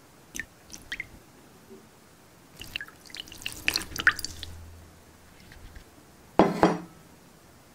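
Liquid dripping in small plinks: a few early on, then a cluster in the middle. Near the end comes a loud double knock.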